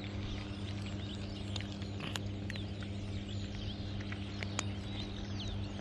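Two cats chewing dry kibble: irregular sharp crunches and clicks. Birds chirp in the background over a steady low hum.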